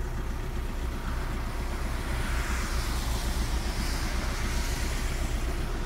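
Volkswagen Crafter van's diesel engine idling steadily, still cold after starting.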